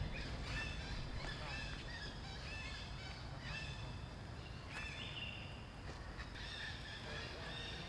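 A string of short, high-pitched animal calls, several overlapping, repeating every half second or so over a steady low rumble.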